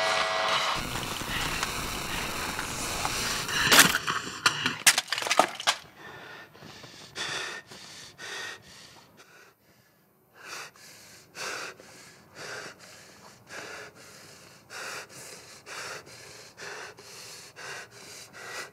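A person breathing hard and fast, panting in quick heavy breaths about two a second, with a short pause about ten seconds in. Before that comes a loud noisy stretch with a sharp bang about four seconds in.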